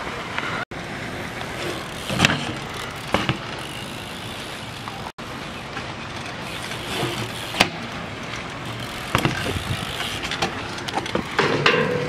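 BMX bike being ridden on concrete: steady tyre rolling noise with a few sharp knocks and clacks from landings and hits on ledges, and a rattly run of small clicks near the end.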